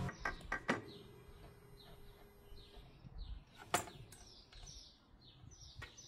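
A bird chirping over and over, a short falling chirp about twice a second, with a few sharp knocks and clicks, the loudest in the middle.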